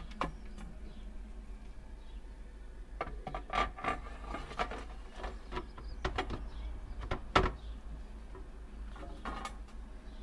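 Aluminium flood barrier boards knocking and scraping against the metal channels as they are handled and lowered into place, a string of short clatters with the loudest knock about seven seconds in.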